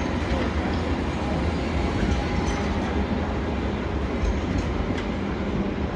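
Steady low rumble of a moving vehicle, with no distinct events.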